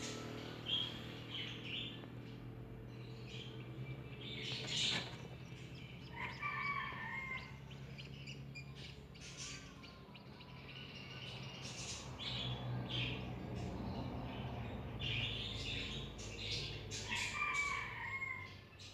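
Newly hatched Ayam Cemani chicks peeping with many short, high chirps, a few of them falling calls, over a steady low hum.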